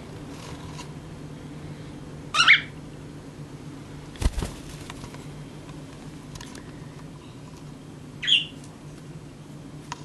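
Cockatiel giving two short, high calls about six seconds apart, with a single knock between them.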